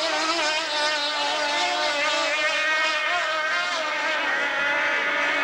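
Engine of a small single-seat racing powerboat running at speed, a steady high-revving whine that wavers slightly in pitch.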